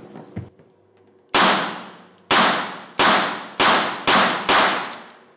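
Six .22 LR shots from a Smith & Wesson 617 revolver fired one-handed in double action, the first five coming faster and faster. Each shot rings on in the indoor range.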